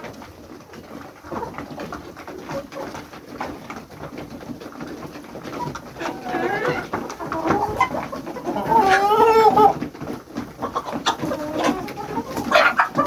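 Farmyard birds calling in short pitched calls among scattered clicks. The loudest is one wavering call about nine seconds in, with more calls near the end.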